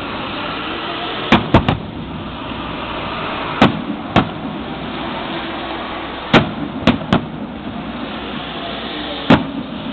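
Fireworks display: about nine sharp bangs of shells bursting at uneven intervals, some in quick pairs or triples, over a steady background noise.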